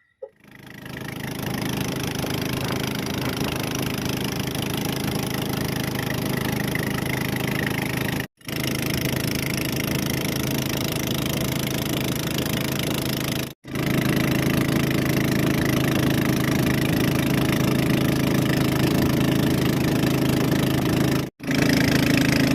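A small boat's engine running steadily under way. It comes up in the first second, then drops out briefly three times and resumes, a little louder after the later gaps.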